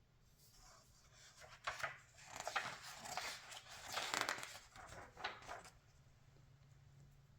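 Glossy magazine pages being turned by hand, a few seconds of paper rustling and swishing with several sharper flicks in the middle, then quiet handling.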